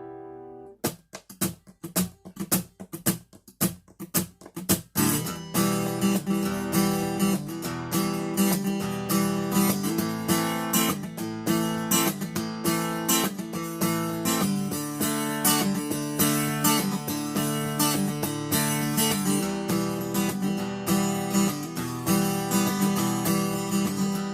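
Acoustic guitar playing an instrumental break: a chord rings and fades, then a few seconds of short, separate strokes with gaps between them, then steady strumming from about five seconds in.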